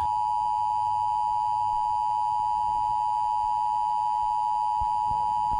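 Emergency Alert System attention signal: a steady two-tone alarm held without a break.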